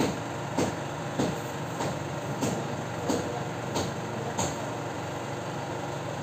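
Building work in the house: a steady low rumble with a row of sharp knocks, about one every two-thirds of a second, eight in all, stopping about four and a half seconds in.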